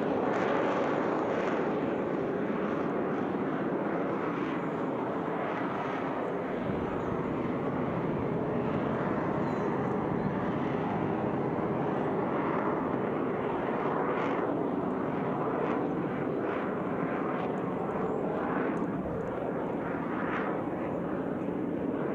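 Steady jet noise from the Frecce Tricolori's Aermacchi MB-339 jets flying their display overhead, an even rushing sound that holds at one level.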